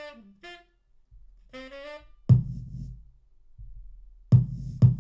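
Cubase library samples auditioned one after another: brief clipped snippets of a saxophone phrase, then single kick drum hits. One kick lands a little past the middle, and the loudest are two kicks about half a second apart near the end.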